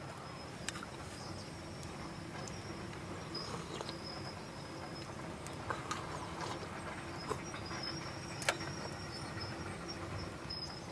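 Campfire burning, a few sharp pops and crackles over a steady hiss.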